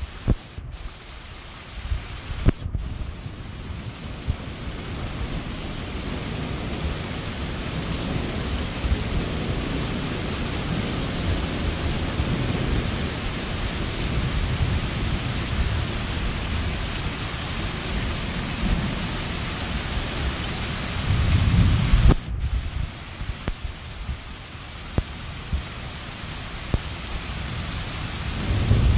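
Steady rain on roofs during a thunderstorm, growing slowly louder. Thunder rumbles deeply about three-quarters of the way through, and another rumble begins near the end.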